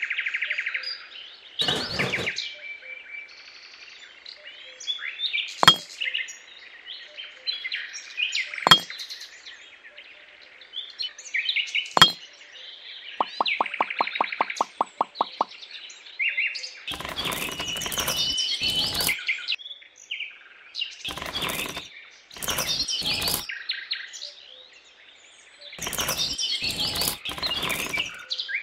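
Birds chirping, with a few sharp clicks and a quick run of ticks midway, then bursts of rustling handling noise in the second half.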